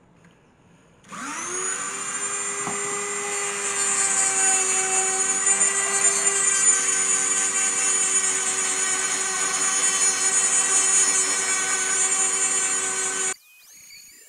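Dremel rotary tool with a flap sanding wheel (a 'paddle sander') spinning up with a rising whine about a second in, then running at a steady high whine while sanding a brass cup drawer handle, louder a few seconds in, and cutting off suddenly near the end.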